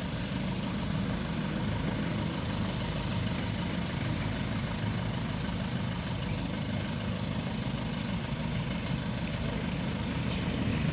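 A heavy engine idling steadily.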